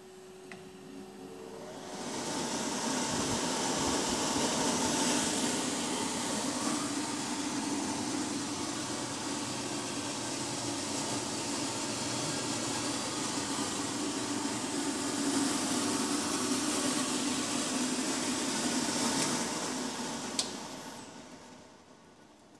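Forced-air blower of a Tecno 500 copper-drum coating pan, switched on about two seconds in and running with a steady rush of air, then switched off with a click near the end and dying away.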